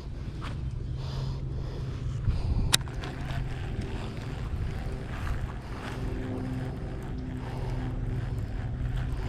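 Steady low motor drone with a few faint steady tones above it, and a single sharp click almost three seconds in.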